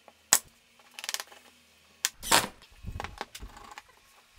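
A nail gun fires once about a third of a second in, a sharp snap, driving a nail into a plywood block. After it come a rattle and several wooden knocks and a heavier thud, as plywood clamp parts are handled and set down on the bench.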